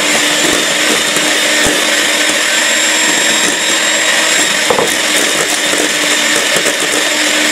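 Electric hand mixer on its low speed setting, whisking egg whites for meringue in a stainless steel bowl while sugar is added gradually: a steady motor whir with the beaters churning, and a few light knocks.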